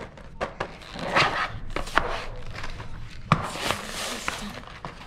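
A toy blister pack being torn open by hand: sharp clicks and crackles of the plastic blister, a knock about three seconds in, then a longer rasping tear as the cardboard backing is peeled away.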